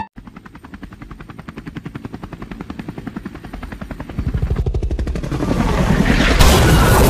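Helicopter sound effect: a fast rotor chop that grows steadily louder, then a loud crashing rumble near the end as the helicopter hits the ground.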